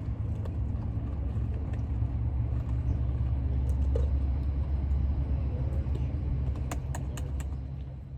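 A steady low rumble that swells and then fades out near the end, with a few faint clicks over it.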